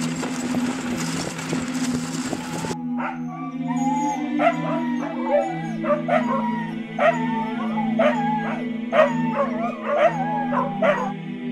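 For the first three seconds a sled runs over snow with a rushing hiss. Then comes a chorus of sled dogs (huskies), many voices howling and yipping with wavering, bending pitches, over soft music with steady low chords.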